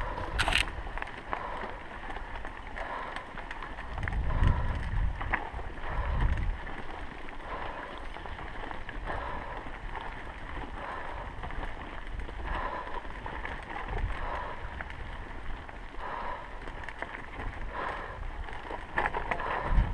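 Wind buffeting the bike-mounted camera's microphone over the rumble of a mountain bike rolling along a rocky dirt trail, with louder low rumbles about four and six seconds in.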